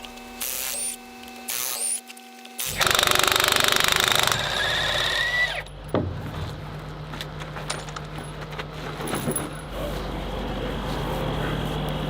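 An impact wrench works on the truck's wheel lug nuts in short, cut-together bursts, the loudest a fast hammering rattle, followed by a short rising whine. After that an engine hums steadily, with scattered metal clicks and knocks over it.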